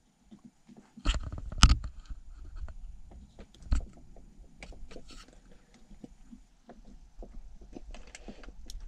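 Small plastic clicks, taps and fiddling of fingers and fingernails working a memory card into a dash cam's card slot, with a few sharper knocks about one second, two seconds and four seconds in.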